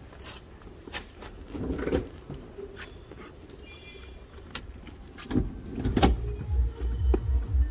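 Clicks and knocks of the driver's door and seat as a person gets into a Skoda Rapid, a key worked in the ignition and a short high beep, then about five seconds in the car's engine is started and runs with a low, uneven rumble.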